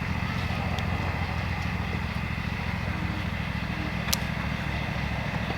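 Tractor engine idling steadily, with a single sharp click about four seconds in.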